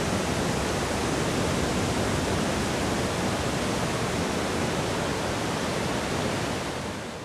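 Ocean surf breaking on a sandy beach: a steady wash of noise that fades out near the end.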